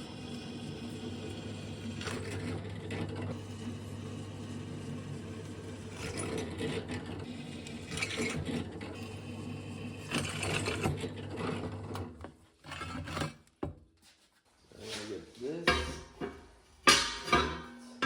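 Metal parts and hand tools being handled, with short clinks and scrapes over a steady low hum; the hum cuts off about twelve seconds in, and the last few seconds are broken up by voice or music.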